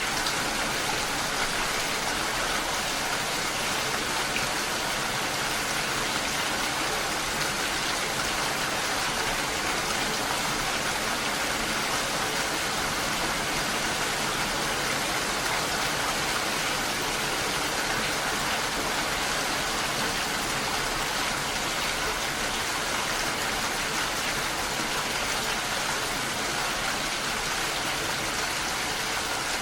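Steady, even rain falling, a dense hiss of drops with no pauses or changes.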